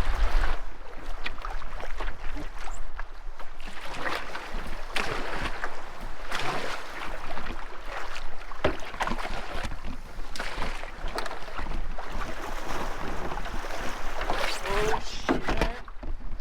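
Canoe paddle strokes and waves slapping against the hull in rough, choppy water, with a string of irregular splashes and knocks. Wind rumbles on the microphone at the start.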